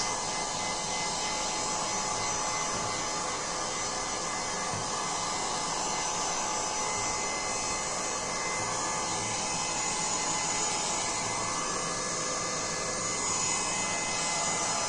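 Handheld electric hot-air gun blowing steadily: an even fan rush with a faint steady whine, drying fresh paint on a badminton racket's frame and strings.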